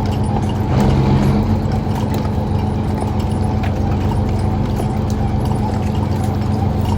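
Steady machinery drone aboard a squid-jigging fishing boat: a low hum of several steady tones with faint scattered clicks, and an extra hum that swells briefly about a second in.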